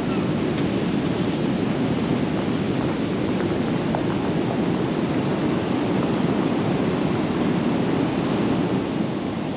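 Storm-driven sea surf and wind, a steady rushing noise with no breaks.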